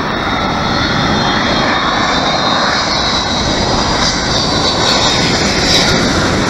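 Jet engines of a Boeing 757 airliner on low landing approach: a rushing engine noise that grows louder as the plane closes in, with a high whine in it that bends in pitch in the last couple of seconds.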